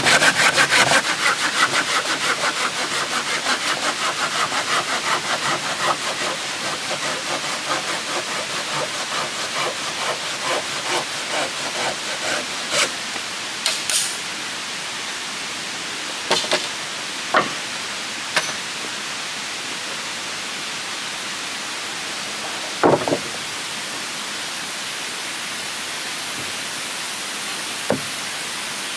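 A hand saw cutting through a wooden plank in fast, even back-and-forth strokes that fade out about twelve seconds in. A few scattered sharp knocks follow, and a steady high hiss rises near the end.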